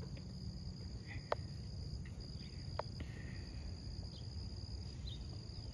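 Steady chorus of insects droning high and even over a low outdoor rumble, with two faint clicks about a second and a half apart.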